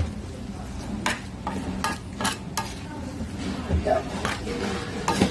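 Metal spatula scraping and clinking irregularly against a large flat pan as dakgalbi fried rice is stirred and pressed, with the rice sizzling in the hot oil.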